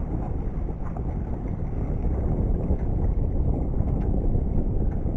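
Wind buffeting the microphone, a steady low rumble, with a couple of faint small clicks.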